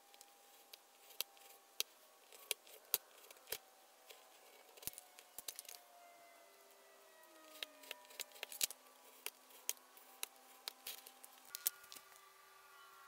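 Utility knife blade drawn along a steel ruler, scoring a thin cedar strip: faint, short cutting clicks and scrapes, a dozen or more at an uneven pace.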